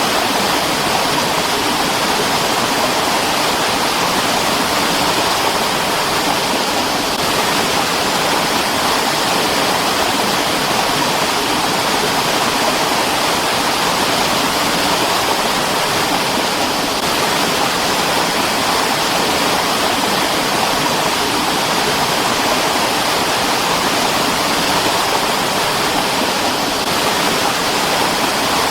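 Mountain stream rushing over rocks in a steady, unbroken wash of water noise.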